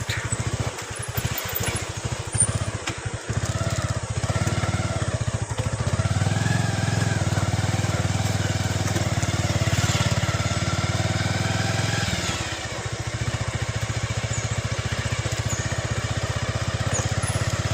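Motorcycle engine running at riding speed on a rough dirt track. It pulls harder about six seconds in and eases off around twelve seconds.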